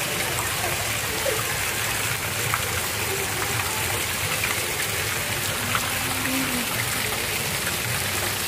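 Park fountain jet spraying water that splashes steadily back down into its basin.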